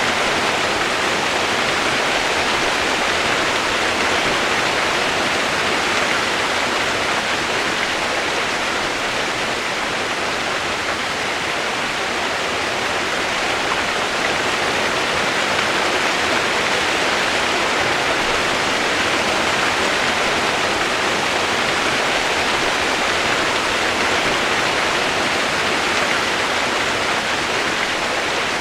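Steady rushing water, an even and unbroken roar of falling or flowing water with no change over the whole stretch.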